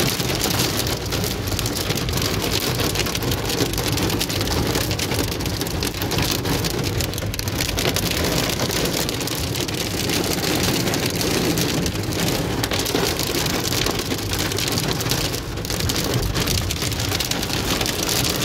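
Torrential rain mixed with hail pelting a car's roof and windshield, heard from inside the car: a steady, loud, dense patter of countless small impacts.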